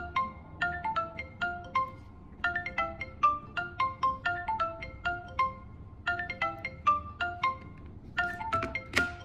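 Smartphone incoming-call ringtone: a marimba-like melody of quick mallet notes in repeating phrases, pausing briefly about two and six seconds in. Near the end comes a denser run of notes and a sharp click.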